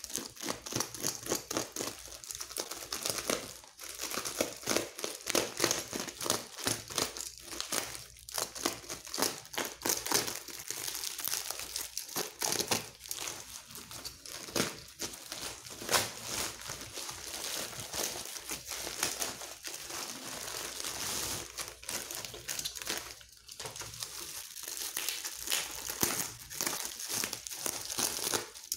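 Plastic shipping mailer and then bubble wrap crinkling continuously as they are handled and cut open by hand, a dense run of quick irregular crackles.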